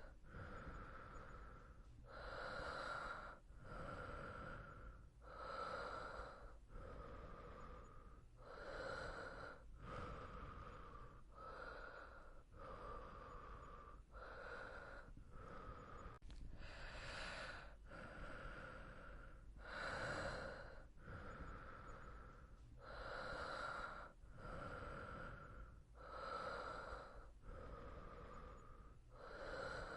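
A person breathing softly and slowly in sleep: gentle airy inhales and exhales following one another in a steady, even rhythm, a breath sound every second or two.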